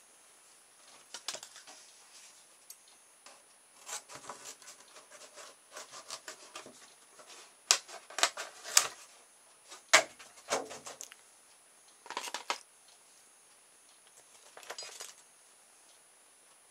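A thin plastic jug being handled and cut to get a piece for a propeller: irregular crackles, clicks and snaps of the plastic in short spells, the sharpest ones about eight to ten seconds in.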